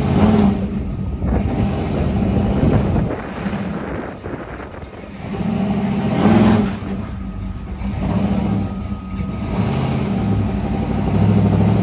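Vehicle engine running while the vehicle is slowly maneuvered, briefly quieter about four seconds in, then rising again with a surge around six seconds.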